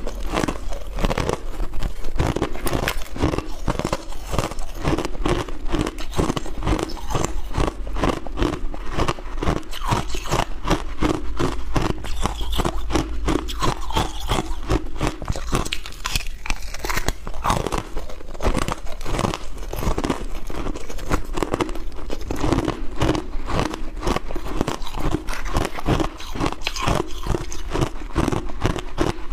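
Close-miked crunching of frozen shaved ice as it is bitten and chewed: a dense, rapid run of crisp cracks.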